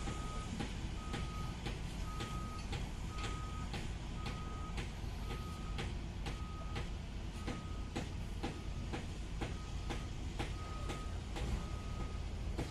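Travel alarm on a CAT 320D excavator beeping steadily about once a second at a single pitch as the machine tracks along. Under it a diesel engine is running, with scattered sharp metallic clanks.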